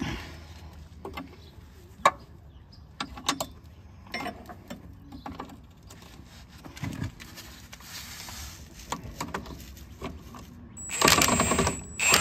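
Scattered metal clinks and knocks of hand tools and sockets being handled, then near the end about a second of a Milwaukee Fuel cordless impact wrench running, driving a bolt on the steering linkage, with a steady high whine over its rattle.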